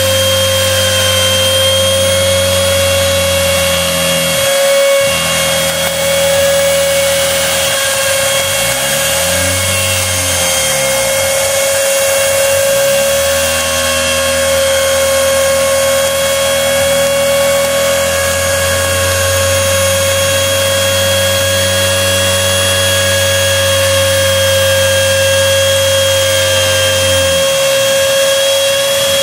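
Wood router spindle on a home-built CNC router running with a steady high whine while cutting plywood. Underneath it the machine's stepper motors hum in low tones that sweep down and back up a couple of times as the axes slow and speed up.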